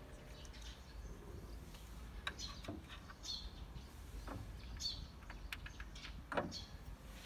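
Faint bird chirps, several short calls a second or so apart, over a low steady background. A few light knocks stand out, the clearest a little over six seconds in.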